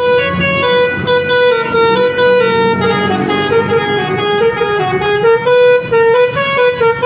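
Dedy Jaya bus's telolet horn, a multi-tone air horn, playing a tune of quick stepping notes without a pause.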